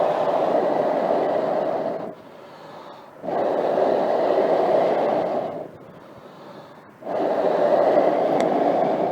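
Three long breaths blown into the fire base of a small storm kettle to fan the wood fire, each lasting about two seconds with short pauses between.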